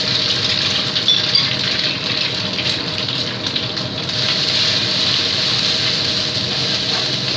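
An egg sizzling as it fries in hot oil in a wok, a steady hiss, with a few taps and scrapes of the wooden spatula stirring it.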